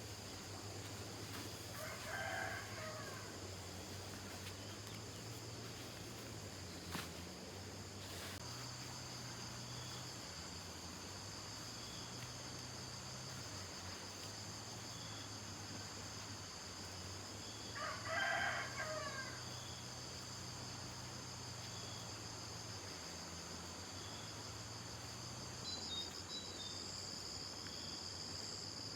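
A rooster crows twice, once about two seconds in and again midway, over steady high-pitched chirring of insects.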